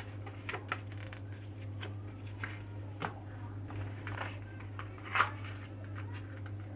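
Scattered light clicks, taps and rustles of small objects being handled, over a steady low hum, with one louder knock about five seconds in.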